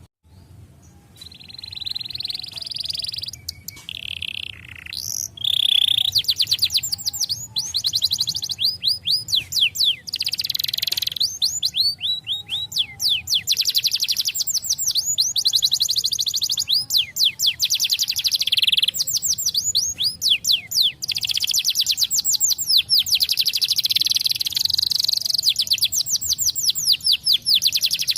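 Canary singing: long rolling trills of quick rising chirps repeated many times a second, broken into phrases by short pauses, with a few held whistled notes near the start.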